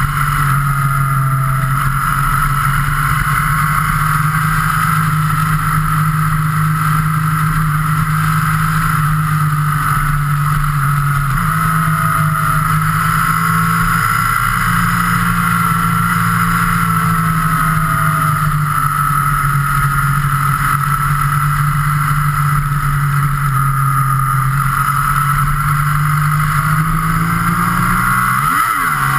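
Motorcycle engine running at a steady cruising speed, with steady wind and road noise on a vehicle-mounted action camera.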